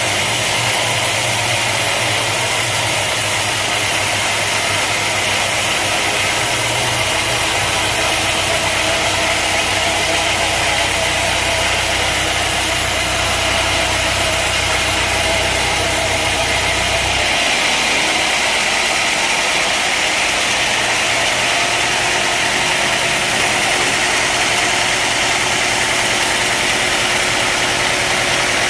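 Sawmill machinery running steadily: an engine-driven drone with a dense, even noise over it. The low hum changes abruptly about seventeen seconds in.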